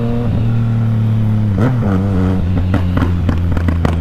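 Yamaha MT-09's three-cylinder engine running under throttle. About one and a half seconds in the throttle closes and the revs fall. From a little under three seconds in, a rapid string of crackles and pops comes from the exhaust on the overrun: the pop-and-bang effect of its remapped engine tune.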